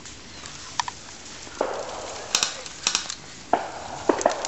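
Dry leaf litter and twigs crunching and rustling in two short bursts as someone shifts about on the forest floor, with a few sharp clicks in between.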